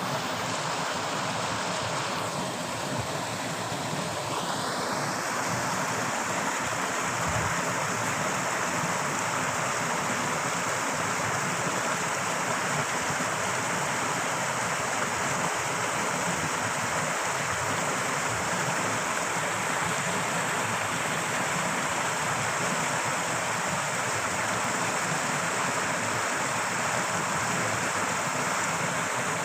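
Torrential running water rushing steadily, a constant full roar of fast-flowing water.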